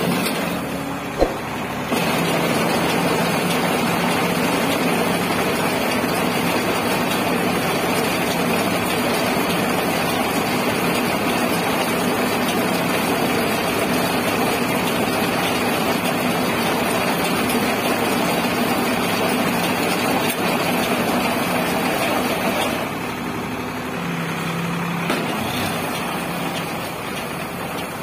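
Sonalika 740 tractor engine running steadily while the tractor-drawn straw baler it drives works through the field, a dense mechanical din. A single sharp knock comes about a second in, and the noise eases a little near the end.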